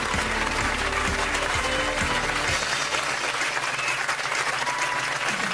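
Studio audience applauding over the show's closing music; the low bass notes of the music drop out about two and a half seconds in and return near the end.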